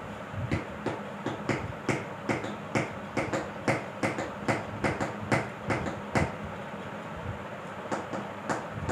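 Rhythmic knocking of a hammer on metal, about two to three blows a second, stopping about six seconds in and starting again near the end.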